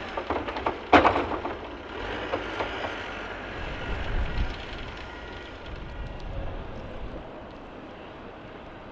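Wheel loader clearing snow: its diesel engine runs throughout, with a loud clank about a second in and a few lighter knocks around it. The engine's low rumble swells briefly around four seconds in, then settles.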